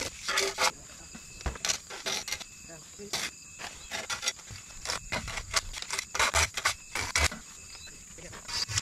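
Steady high-pitched insect chirring, with a run of irregular short scraping or knocking noises over it.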